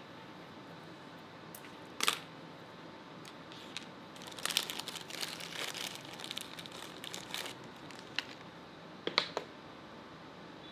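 Sharp clicks of a hand wire-stripping tool and crinkling, rustling handling of plastic-insulated power cable: one click about two seconds in, a few seconds of crinkling and clicking in the middle, and a pair of clicks near the end.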